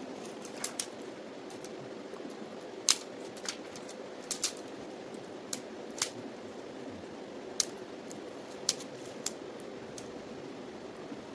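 Wood campfire crackling: about a dozen irregular sharp pops and snaps over a steady low rushing noise.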